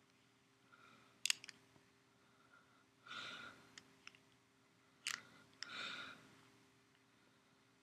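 Quiet room with a few sharp clicks, the loudest about a second in and about five seconds in, and soft breaths in between.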